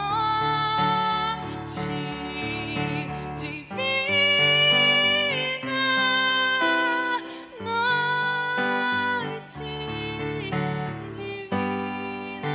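Recorder (flauta doce) ensemble playing a slow Christmas melody in long held notes over a keyboard accompaniment.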